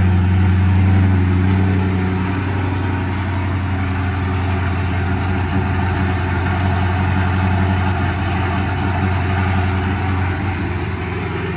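Dodge Charger engine running just after starting on a jump start from a drained battery: a steady hum for about two seconds, then a choppier, slightly quieter note as it settles at idle.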